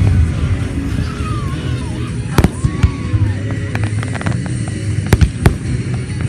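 Fireworks going off: several sharp bangs, a cluster of smaller crackles in the middle, and a couple of brief whistles that rise and fall, over a constant low rumble.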